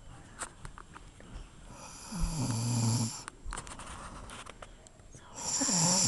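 A woman snoring in her sleep: two snores, each about a second and a half long, the first about two seconds in and the second starting about five and a half seconds in.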